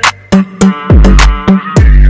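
Background music with an electronic hip-hop beat: deep bass notes that slide downward in pitch, with sharp drum-machine hits in a steady rhythm.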